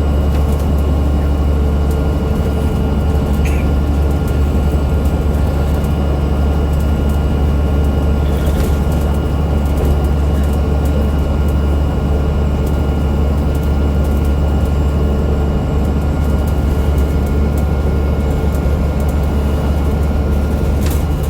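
Alexander Dennis Enviro500 MMC double-decker bus heard from on board, running at a steady speed: a heavy, even low drone from the Cummins ISL8.9 diesel and driveline, with a steady high-pitched whine over it, the odd rear-axle whine. A couple of faint clicks.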